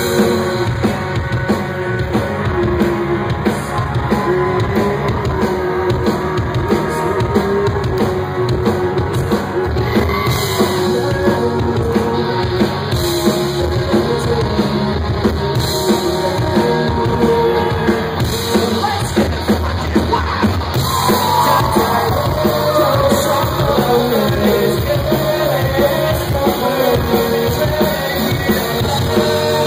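A rock band playing live in a concert hall: electric guitars, bass and a drum kit, with a singer's voice over them, most clearly in the second half.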